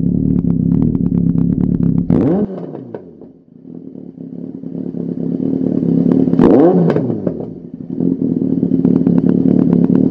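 Yamaha XJR1300's inline-four engine heard through a Lextek CP1 aftermarket silencer, running and being revved on the stand. Quick blips of the throttle about two seconds in and again about six and a half seconds in each rise sharply and fall back, with a slower climb in revs between them.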